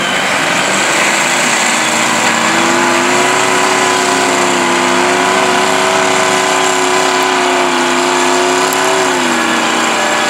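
Off-road truck's engine revved up about two seconds in and held at high revs for several seconds, then easing off near the end.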